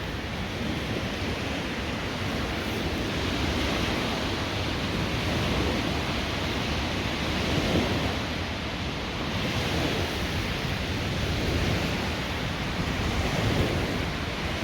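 Strong gusting wind of about 15 m/s buffeting the microphone, surging and easing, with louder gusts about eight seconds in and again near the end.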